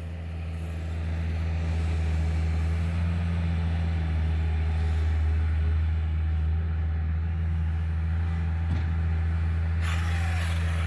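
A steady low engine drone that grows a little louder about a second in and then holds level.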